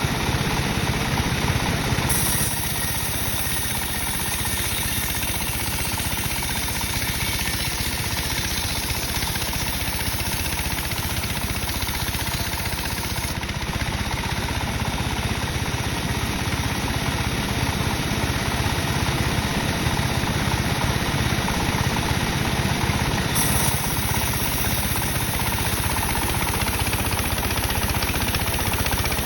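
Sawmill saw running steadily while cutting dry teak. A higher hiss comes in about two seconds in, drops away around the middle, and returns later.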